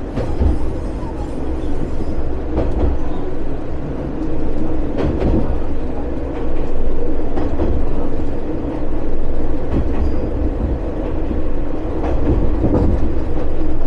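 Watarase Keikoku Railway's one-car diesel railcar running along the line: a steady rumble of wheels and engine, with a few louder knocks along the way.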